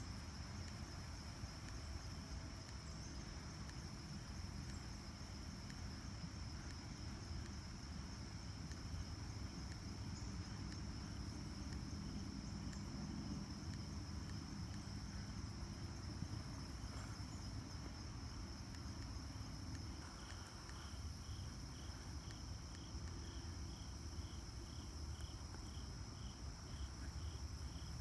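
Insects calling: a steady high-pitched buzz throughout, joined about two-thirds of the way in by a second insect's pulsing chirp, about two pulses a second, over a low steady rumble.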